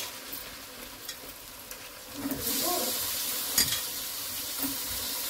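Chicken pieces marinated in lemon juice and salt going into hot oil in a kadai with fried onions and ginger-garlic paste. The sizzling jumps louder about two seconds in and keeps on steadily. A few sharp knocks of a utensil against the pan come through.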